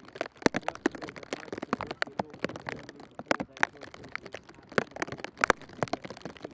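Footsteps of a group of footballers jogging on grass: many irregular, sharp steps overlapping, several a second.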